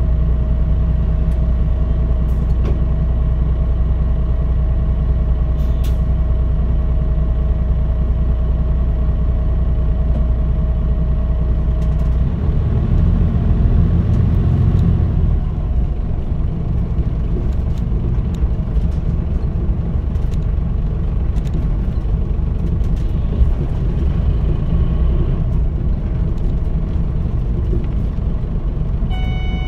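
Mitsubishi Fuso KL-MP35JM diesel city bus heard from on board: the engine idles steadily for about twelve seconds, then revs up as the bus pulls away and keeps running. A short electronic tone sounds right at the end.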